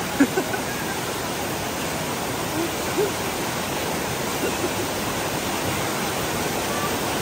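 Waterfall water rushing steadily.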